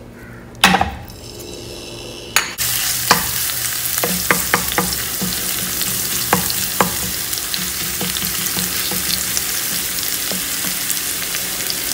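A sharp knock just under a second in, then minced garlic and ginger hit hot oil in a wok at about two and a half seconds and start sizzling suddenly. They go on frying steadily while a wooden spatula stirs them, with scattered clicks against the pan.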